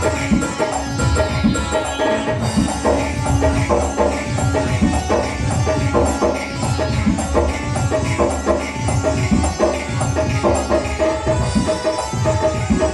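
Indian film music with fast hand-drum strokes, the low drum notes bending in pitch, under a sustained melody.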